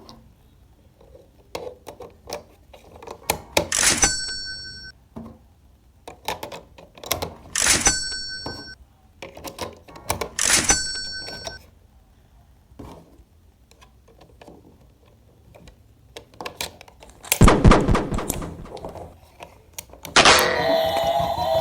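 Hard plastic toy parts being handled and snapped together: scattered clicks and knocks, with three louder clatters about three seconds apart and a dense run of knocks later on. A pitched, tuneful sound starts near the end.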